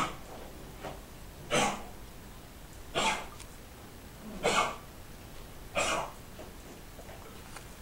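Beagle coughing: five short coughs about a second and a half apart, plus a weaker one between the first two. This is the cough of suspected kennel cough (canine infectious bronchitis).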